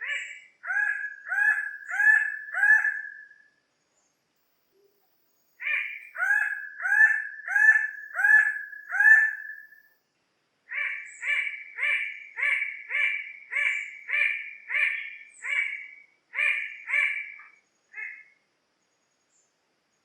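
Bird-of-paradise (cenderawasih) calling in three bouts of repeated notes: five, then six, then a longer, more even run of about fourteen.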